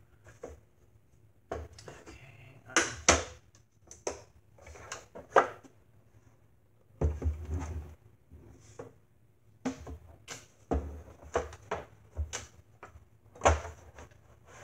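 Wooden portable tabletop easel being handled and opened: irregular knocks, clicks and scrapes of its wooden frame and hardware, with a few sharper knocks.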